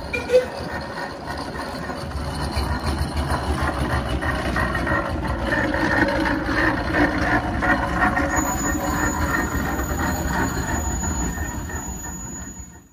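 Steam engine running: a steady, fast rhythmic beat under several held steady tones, which fades out near the end.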